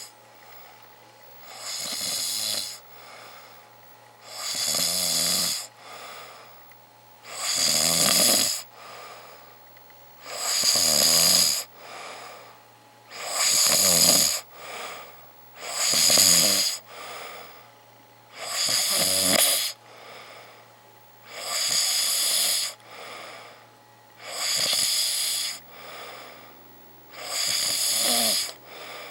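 A person snoring loudly in deep sleep: a loud snore about every three seconds, each followed by a quieter breath out.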